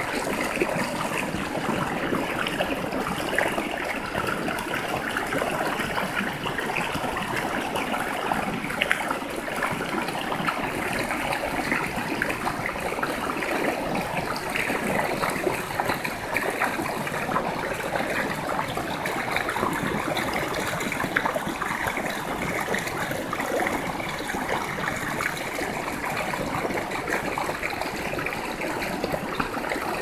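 Mountain stream water pouring between boulders into a pool: a steady splashing rush.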